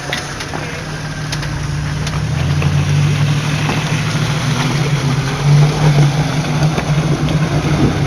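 Off-road vehicle engine running steadily, growing louder about two seconds in as it takes on more throttle.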